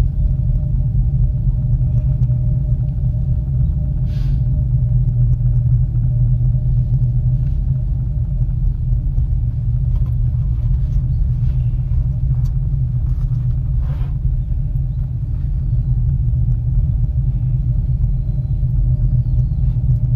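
Steady low rumble and hum inside a moving Miyajima Ropeway cable-car cabin, with a few faint clicks and creaks.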